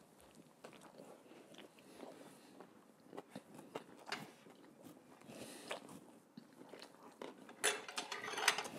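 Close-miked chewing of a mouthful of Italian sub sandwich: soft, irregular wet mouth clicks and smacks, with a louder, denser stretch of chewing noise lasting about a second near the end.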